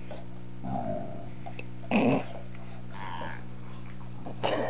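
Adult Doberman Pinscher grunting a few times, the loudest about two seconds in, with a brief whine a little after three seconds. These are sounds of annoyance while a puppy pesters him.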